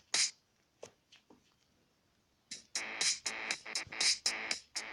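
Electronic pop loop playing back from a music-making app: a drum hit, a quiet gap with faint ticks, then a drum-machine beat with synth layers kicking in about two and a half seconds in.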